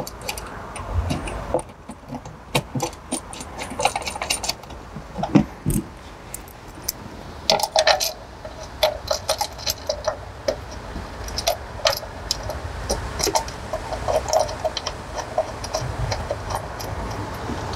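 Steel bolts clinking and rattling against a metal pedestal swivel plate as they are lined up and threaded by hand into a seat suspension base: scattered metallic clicks and taps, some with a short ring.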